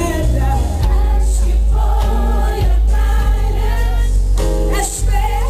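Live gospel music: a choir singing with a band, over a heavy, sustained bass.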